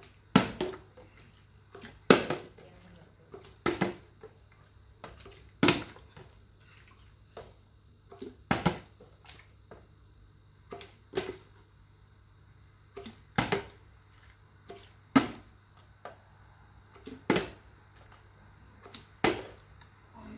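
Small plastic water bottle, partly filled with water, repeatedly flipped and landing on a tiled floor: a sharp clatter about every two seconds, with softer knocks between.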